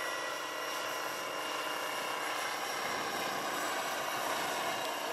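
Large electric-powered Vario Bell 212 scale model helicopter (2.36 m rotor) in flight, giving a steady whine from its electric drive and rotor.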